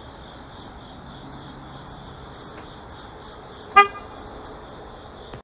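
A single short, pitched honk-like toot about three quarters of the way through, over a steady background hiss with a faint constant high-pitched whine.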